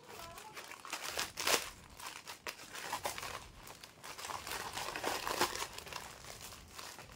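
Plastic courier mailer bag crinkling and rustling in the hands as it is opened, in irregular crackles with a few sharper ones.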